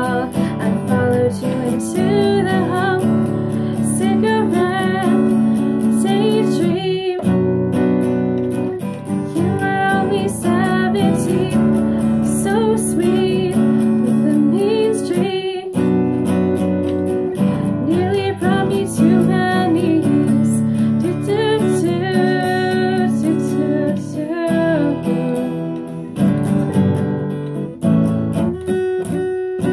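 Acoustic guitar strummed in steady chords while a woman sings along, with brief breaks in the strumming about 7 and 15 seconds in.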